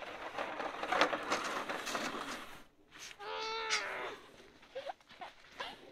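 A child's voice gives one drawn-out, wavering cry about three seconds in. Before it there are a couple of seconds of scraping and crunching noise on the snow.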